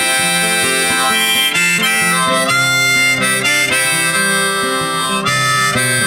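Background music: an instrumental break of a song, with harmonica over guitar.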